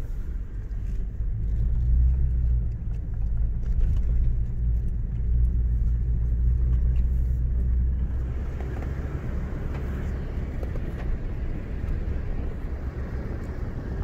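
Vehicle driving slowly along a dirt track, heard from inside the cab: a steady low engine and road rumble. More hiss of wind and tyres comes in from about eight seconds in.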